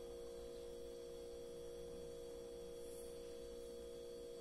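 Faint, steady hum of a few fixed tones, unchanging: background hum of the room.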